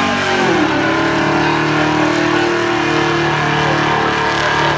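Drag-race cars accelerating hard off the line, led by a 1973 Plymouth Road Runner's 318 V8 at full throttle while spinning one rear tire. The engine pitch drops sharply in the first half second, then holds steady.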